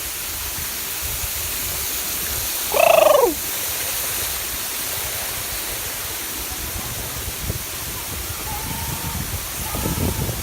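A bird gives one loud call about three seconds in, sliding down in pitch over about half a second, over a steady rushing background.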